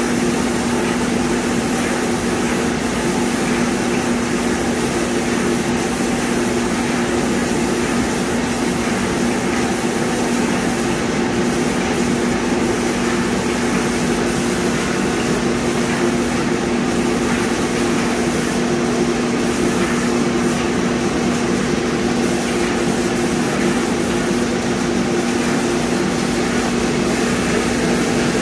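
TriTech airless paint sprayer running: a steady motor hum under the hiss of the spray gun atomizing coating, the highest part of the hiss thinning briefly several times.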